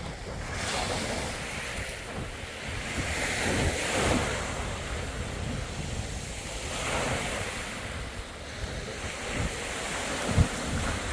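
Sea waves breaking and washing up a beach, the surf swelling and easing with the loudest surges about four and seven seconds in. Wind buffets the microphone in low thuds, with one sharp bump near the end.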